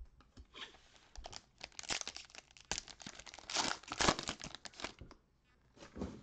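Foil wrapper of a Donruss football trading-card pack being torn open and crinkled by gloved hands: a run of crackling tears over about four seconds, loudest about four seconds in.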